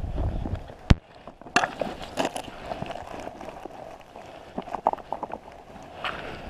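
Jacket fabric rustling and brushing over a body-worn camera's microphone, with a low rumble at the start, a sharp knock about a second in and scattered crackles of handling.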